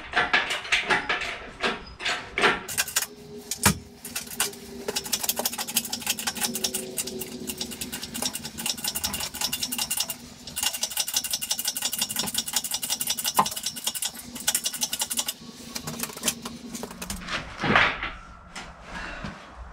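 Workshop engine crane being wheeled across the floor with a heavy milling-machine turret top hanging from its chain: a fast, even rattle of casters and chain for about twelve seconds, with metal clinks and knocks before and after as the load is pushed and guided into place.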